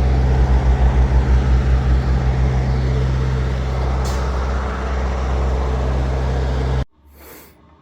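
Heavy goods vehicle's diesel engine running loudly as the lorry pulls away, with a pulsing drone in the first couple of seconds and a short air hiss about four seconds in. The sound cuts off suddenly near the end.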